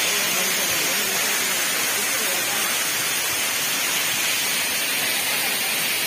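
Waterfall in monsoon flow, its water pouring onto the rocks in a steady, very loud rush.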